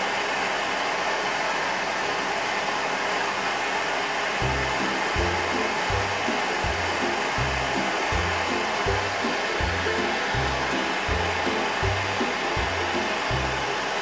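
Propane lampwork torch (Lopet bench burner, concentrated flame) running with a steady hiss. Background music with low bass notes pulsing about one and a half times a second comes in about four seconds in.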